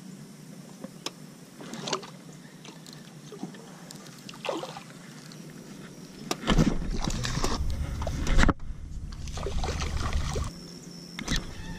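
Baitcasting rod and reel being handled in a small boat, with scattered sharp clicks and knocks and water sloshing against the hull. About halfway in, a louder rushing noise with a low rumble starts and runs for about four seconds before dropping back.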